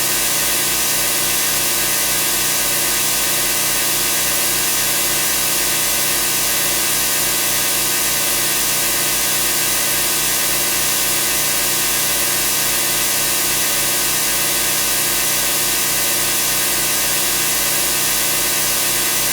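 Homemade synthesized sound effect of rotating machinery in a machine room: a dense, steady motor-like drone with a pulsing wah-wah-wah hum that throbs about twice a second.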